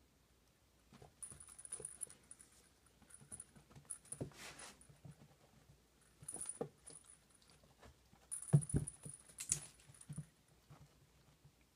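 Ferret playing with a feather teaser toy on carpet: irregular scuffling and pouncing, with light jingling that comes and goes. The loudest thumps come about eight and a half seconds in.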